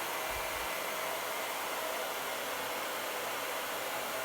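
Hair dryer blowing steadily on its hot setting, a constant airy hiss, used to soften a dried-out refrigerator door gasket. A brief low thump about half a second in.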